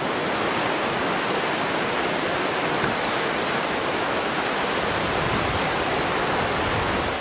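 Low surf breaking and washing up a sandy beach: a steady, even rush of water noise.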